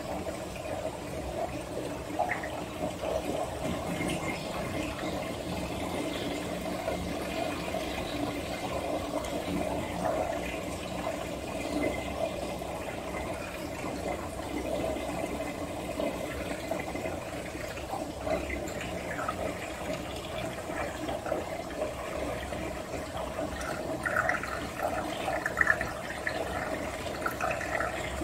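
Water running and splashing steadily in an aquarium tank, with a few sharper spatters near the end.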